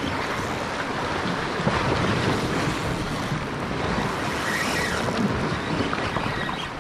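Sea waves washing against shore rocks, a steady rushing noise, with wind buffeting the microphone.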